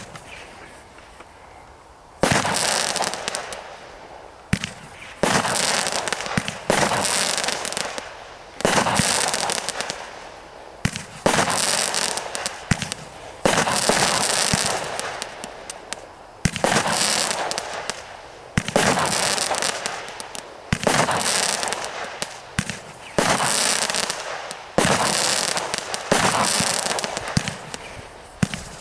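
Multi-shot firework cake firing, with a sharp shot every second or two starting about two seconds in. Each shot is followed by a spray of crackling stars that fades before the next one.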